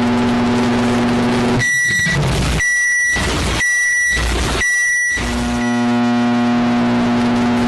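Microwave oven humming steadily, then falling silent while it gives four evenly spaced high beeps about a second apart, then humming again.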